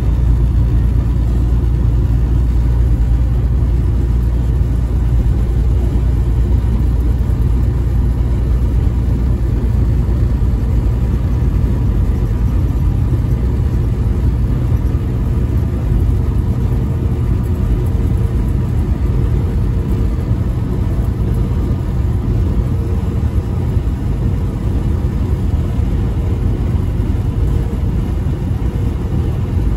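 Steady low rumble of a vehicle's engine and tyres cruising at highway speed, heard from inside the vehicle, with a faint constant hum above it.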